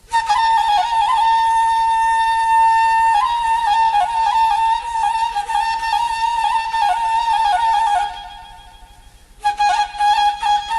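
Solo flute playing long held notes with small ornamental turns. The melody breaks off for about a second and a half near the end, then comes back in.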